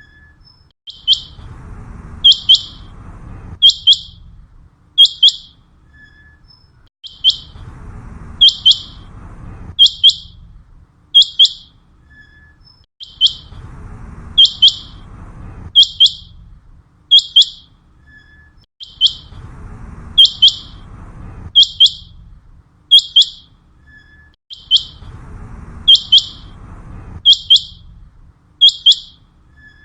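Common quail calling: short, sharp, high-pitched notes, often in quick pairs or threes, repeated steadily over and over.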